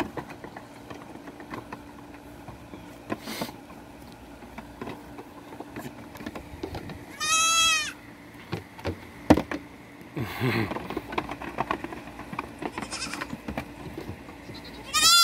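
Young goats bleating: one short call about seven seconds in that rises then falls in pitch, and another starting just before the end. In between, hooves knock on the plywood platforms, with one sharp knock about nine seconds in.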